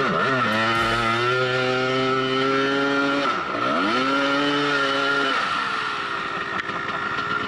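Dirt bike engine under way, its revs dropping and climbing back twice, then holding a lower steady note for the last couple of seconds.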